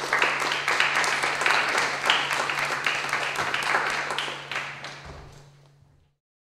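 Audience applauding, many hands clapping, fading out near the end, over a steady low electrical hum.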